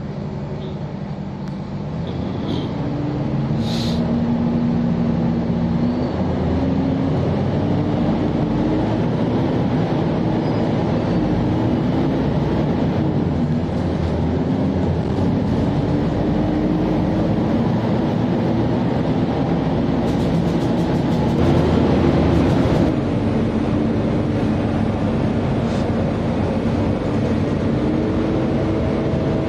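A Rea Vaya city bus driving along, heard from on board: a steady engine and road noise, with the engine note rising and falling as the bus speeds up and slows. A louder rattling stretch comes about two-thirds of the way through.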